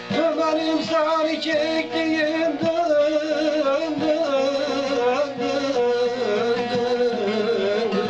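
Instrumental passage of a Turkish folk song: a plucked-string melody that wavers and ornaments over a steady accompaniment.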